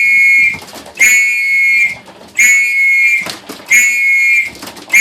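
A hand whistle blown in short, steady blasts, about five of them, one every second and a bit, calling young racing pigeons in to the loft.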